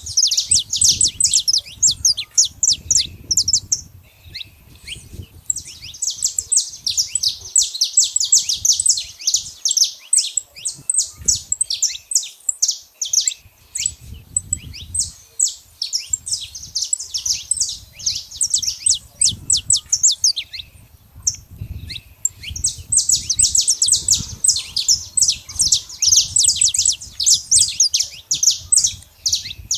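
Saffron finch (canário-da-terra) singing: long runs of rapid, high chirps, pausing briefly about four seconds in and again about twenty seconds in. A faint low rumble lies underneath.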